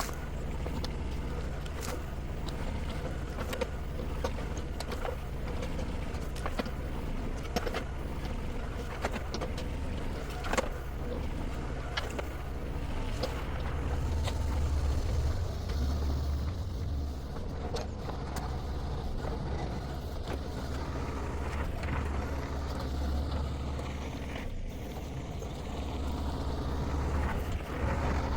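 Shantui STE35SR mini excavator's diesel engine running steadily under work, with scattered sharp cracks and knocks. The engine gets louder in spells in the second half.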